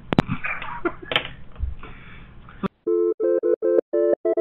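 Telephone line hiss with a few clicks, then the line cuts off and about six short electronic beeps follow in quick succession, the last ones higher in pitch.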